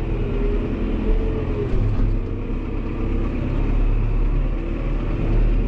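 Fendt Vario tractor running under load, heard from inside the cab while driving across rough, freshly worked field: a steady low engine drone with a higher whine that wavers in pitch.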